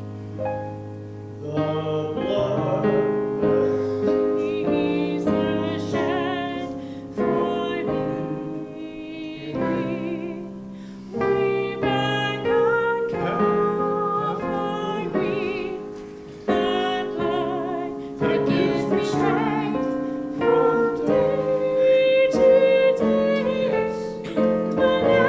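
Piano accompanying a singer, who holds long notes with vibrato over sustained chords.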